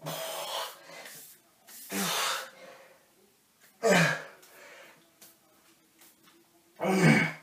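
A man's forceful exhalations during a walkout-to-push-up exercise: four short, breathy puffs about every two to three seconds, some with a grunt in them.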